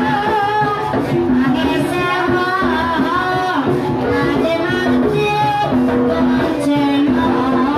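Ebeg (kuda lumping) accompaniment music played live: a singer's wavering held notes over steady pitched instrument notes, with no break.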